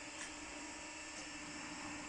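Steady electronic hum with high hiss and a few fixed tones, one faint click about a quarter second in.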